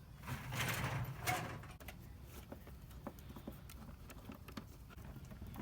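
Old air filter being handled and pulled out of its plastic airbox: a brief scraping rustle about a second long near the start, then scattered light clicks and taps.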